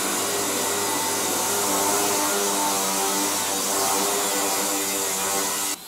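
Cordless angle grinder cutting through steel sheet: a steady motor whine over a loud grinding hiss, which cuts off suddenly near the end.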